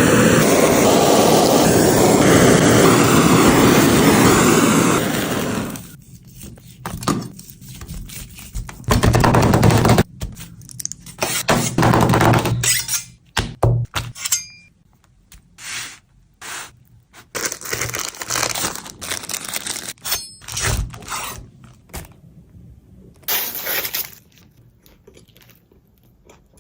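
Food-preparation noises: a loud, steady rushing noise for about six seconds, then scattered knocks, scrapes and clatters of utensils.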